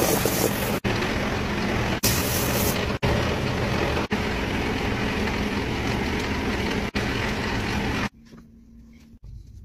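Shoe-repair finishing machine running, its motor and sanding drums grinding the rubber sole of a sneaker: a loud, steady grinding din, broken by several abrupt cuts, that stops suddenly about eight seconds in.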